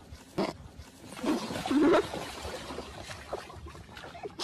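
A husky grunting: one short grunt about half a second in, then a longer, louder grumbling vocalisation from about one to two seconds in.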